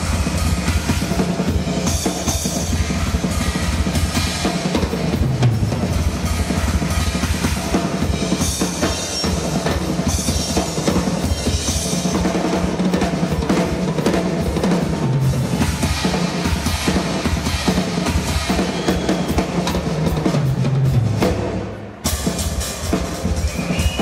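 Drum solo on a large acoustic kit with Paiste cymbals: fast, dense strokes across the toms, snare and bass drum, with cymbals ringing over them. The sound dips briefly near the end before the playing resumes.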